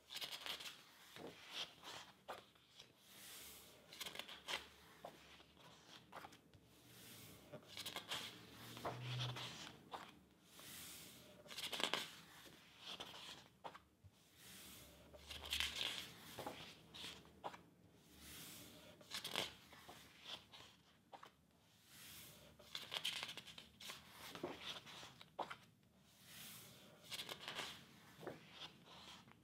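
Pages of a large hardcover book being turned one after another, each turn a soft papery swish, coming every couple of seconds.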